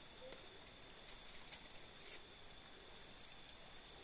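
Quiet forest background: a thin, steady high-pitched tone with a few faint clicks, one about a third of a second in and one around two seconds in.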